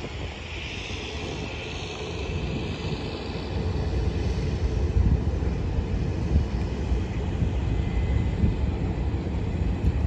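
Low, steady rumble of a seaplane's propeller engine moving on the river, mixed with wind buffeting the microphone; the rumble grows louder about four seconds in.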